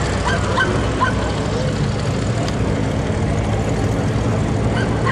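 Ford GT's twin-turbo V6 running at low speed with a steady low hum, no revving.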